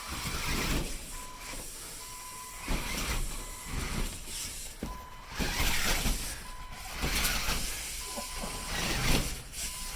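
Small electric RC car driving over suspended-ceiling tiles in stops and starts, its wheels and motor giving a hissing, scraping run that swells and fades several times.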